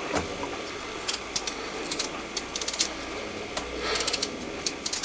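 A potato being peeled by hand: quick scraping strokes of the blade across the skin, coming in short irregular clusters.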